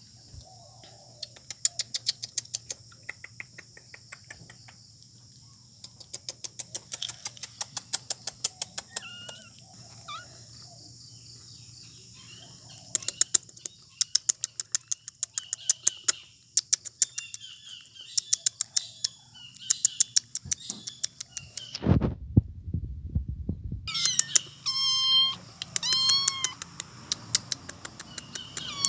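Small kittens meowing, faint and scattered at first, then a run of clearer high meows near the end. A steady high whine and rapid trains of high clicks run behind. A low muffled rumble lasts about two seconds shortly before the louder meows.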